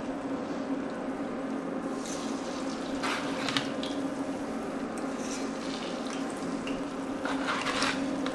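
Onion bhajis shallow-frying in hot oil: a steady sizzle under a low steady hum. A metal fish slice scrapes across a baking tray twice, briefly about three seconds in and again near the end.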